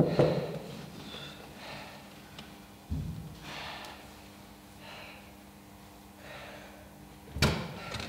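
A thump at the start, a low thud about three seconds in and a sharp clack near the end, typical of sounds at a door, with soft breaths and exhales in between.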